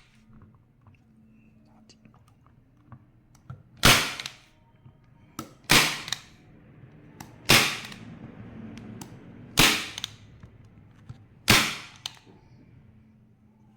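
Unitacker Light Force manual staple gun firing thin 53-type staples into nylon mesh: five sharp snaps about two seconds apart, starting about four seconds in.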